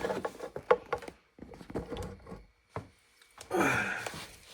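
A few light knocks and clicks from work on a plumbing fitting, then a loud effortful exhale, a sigh sliding down into a groan, about three and a half seconds in.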